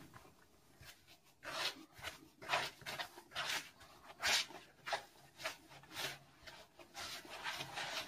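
Hands kneading a floury flour-and-milk dough in a plastic bowl. It makes soft rubbing strokes that start about a second and a half in and repeat roughly twice a second.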